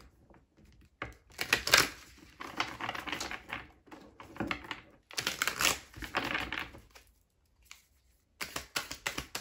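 A deck of tarot cards being shuffled by hand: several bursts of cards sliding and rustling against each other, a short pause, then a fast run of flicking clicks near the end as the deck is riffled.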